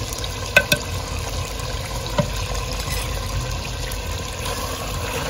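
Chicken frying in oil in a cooking pot, a steady sizzle, as red chilli powder is stirred in. A few sharp clinks of the stirring spoon against the pot come about half a second in and again about two seconds in.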